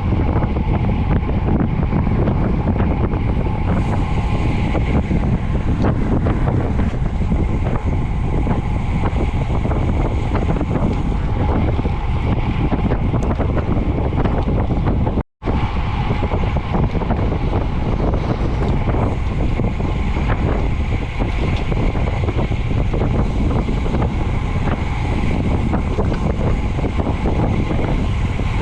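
Wind buffeting the microphone of a camera carried on a moving bicycle: a loud, steady rumbling roar with road noise beneath. It is broken by a split-second drop to silence about halfway through.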